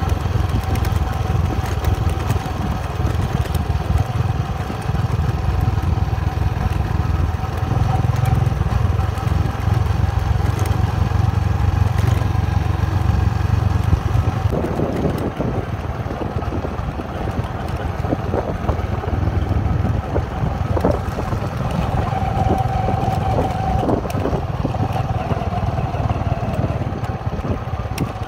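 Motorcycle engine running steadily while riding, with road and wind noise. About halfway through the low engine hum drops and a rattling clatter comes in.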